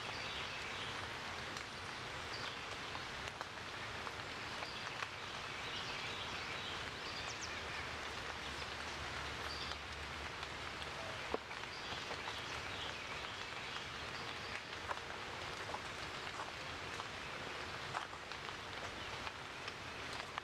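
Outdoor ambience: a steady hiss with faint, scattered bird chirps and a few small ticks.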